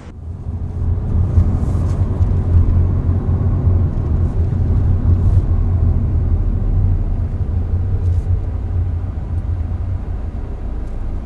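Steady low rumble of a car driving on a motorway, engine and tyre noise heard from inside the cabin, building over the first second and easing slightly near the end.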